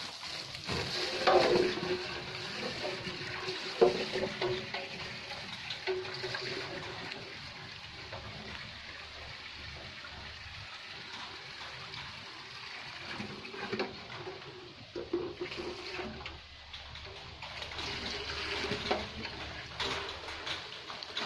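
Water running and splashing onto a wet concrete stall floor, a steady rush with small irregular splashes and knocks.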